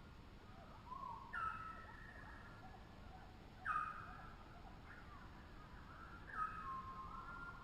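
Birds calling: three clear, held calls that each start sharply with a short drop in pitch, with softer calls in between, over a faint steady hiss.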